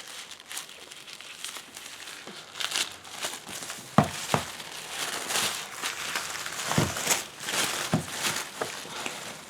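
Packaging on a boxed tarot deck crinkling and rustling by hand as it is unwrapped, with a few sharp clicks and taps partway through.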